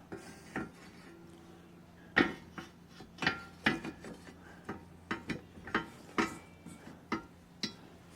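Metal seat-suspension parts being handled and fitted together by hand: a dozen or so irregular clinks and knocks, the loudest about two seconds in.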